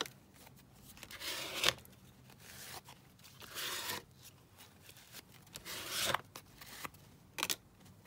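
Paper being rubbed and smoothed down by hand onto glue, in about five separate scraping strokes, each under a second long.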